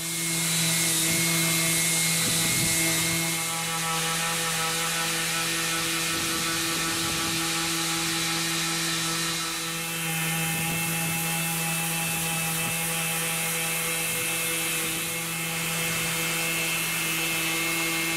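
Random orbit sander running on a cured epoxy resin and walnut panel, sanding it smooth: a steady hum with a high hiss that starts at once and dips briefly a couple of times.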